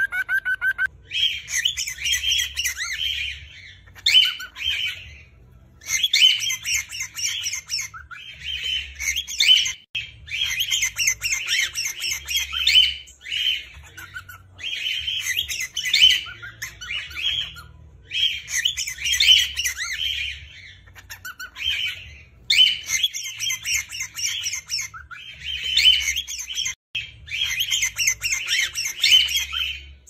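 Cockatiels singing and chattering: bout after bout of rapid, scratchy warbled phrases, each a second or two long, with short pauses between them.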